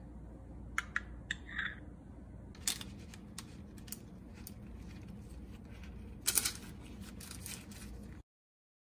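A few light clicks and a short scrape of a metal spoon against the paratha and plate, then parchment paper crinkling and rustling as the paratha is rolled up in it by hand, loudest about six seconds in. The sound cuts to silence shortly before the end.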